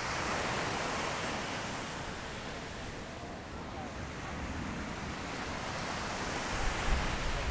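Small waves of surf washing onto a sandy beach, a steady wash that swells about a second in. Near the end, gusts of wind start buffeting the microphone with a low rumble.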